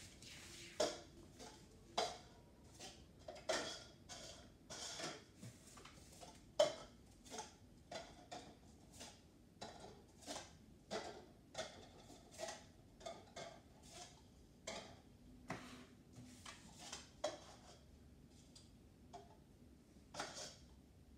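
Cups clicking and clacking as they are set down and stacked into a pile, a light knock every half second to a second, with a short lull near the end.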